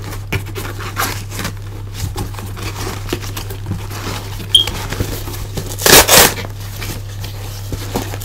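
Plastic air-pillow packing and a cardboard box being handled: scattered rustles and clicks, with a louder crinkle about six seconds in, over a steady low hum.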